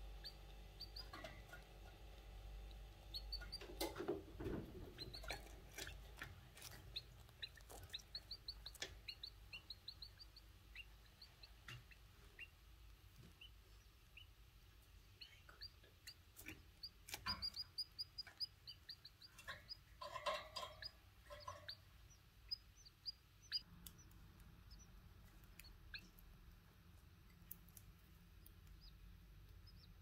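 Faint canary nestlings begging: runs of rapid, high-pitched cheeps, with scattered clicks and a brief louder cluster of calls about two thirds of the way through.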